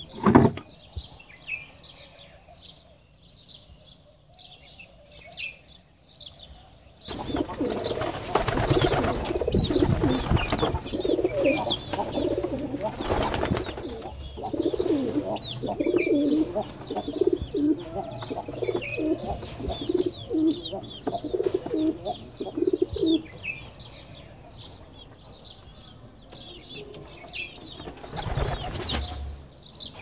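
Pigeons cooing in repeated low pulses and flapping their wings, over steady rapid chirping of small birds; the wing flapping comes in a long stretch about a quarter of the way in and again briefly near the end. A sharp knock right at the start is the loudest sound.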